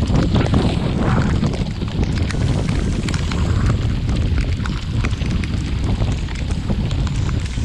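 Heavy rain and gusting wind on a sailboat's deck: a steady low rumble of wind buffeting the microphone under a dense patter of raindrops.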